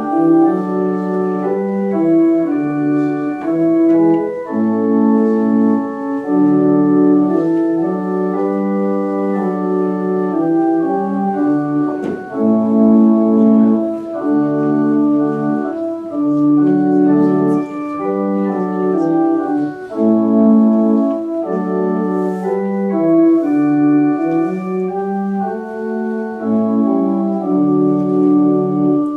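Organ music in slow, held chords, the notes sustained and moving together from chord to chord.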